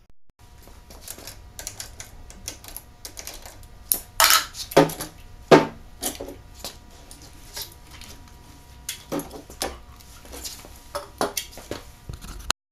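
Hand-tool work on a MerCruiser 383 Mag Stroker's exhaust elbow: irregular metallic clicks and clatter as its sensor wire is unplugged and the elbow is unbolted and lifted off. There are a few louder knocks between about four and six seconds in, over a faint steady hum.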